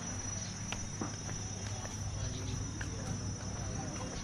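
Insects trilling in one steady, high-pitched note, over a low rumble.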